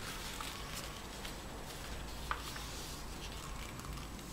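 Faint handling of a folded sheet of A4 printing paper: soft rustling with a few light ticks as it is pressed and creased, over a low steady background hum.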